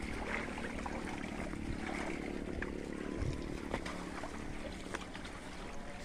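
Water trickling and sloshing in a shallow stream as it is stirred by wading and a hand scoop net, with a few small sharp splashes.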